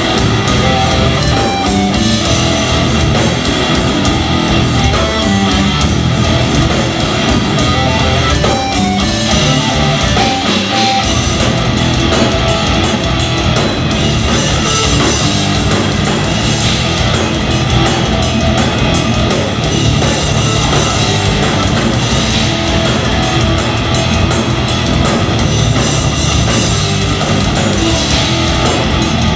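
Progressive metal band playing live, loud and dense: distorted electric guitars over bass and drum kit. The low end drops out briefly about eleven seconds in, after which the drums and cymbals hit in a rapid run.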